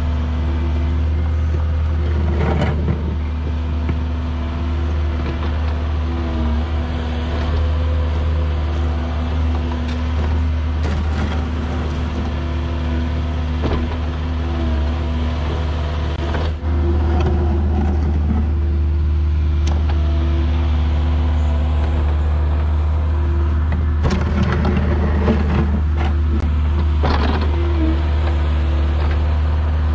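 Diesel engine running steadily, with a few brief knocks; it gets a little louder about halfway through.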